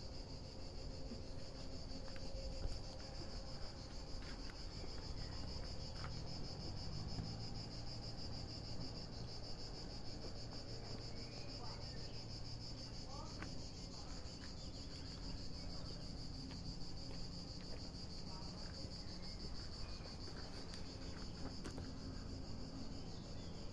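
Continuous chorus of cicadas singing in the trees, a steady high-pitched buzz that never breaks.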